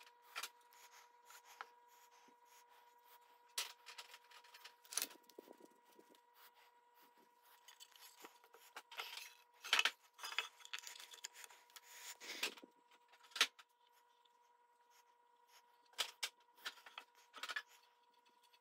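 Small wooden trim pieces and a wooden box handled during a glue-up: scattered light knocks, taps and rubbing of wood on wood, the sharpest knocks around the middle. A faint steady high hum runs underneath.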